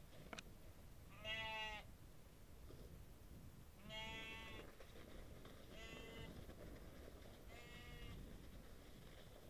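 Livestock bleating four times, each call a wavering bleat about half a second long, a couple of seconds apart, over a faint low rumble.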